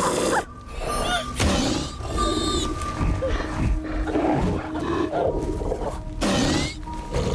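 A film sea monster snarling and roaring through a violent struggle, with several sudden loud crashes, over a tense music score that holds a steady tone underneath.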